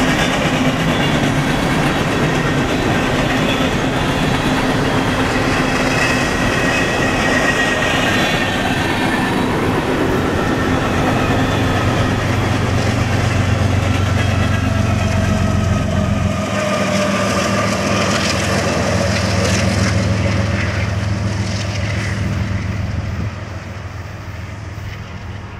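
A long freight train of loaded coal hopper cars rolls past, with steady wheel-on-rail noise and faint ringing. About halfway in, the rear diesel locomotives pass with a strong low engine drone whose pitch falls slightly as they go by, and the sound fades near the end as the train moves away.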